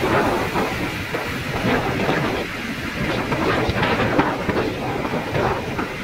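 Wind and road noise from travelling in a moving vehicle: a loud, uneven rushing with gusty buffeting on the microphone.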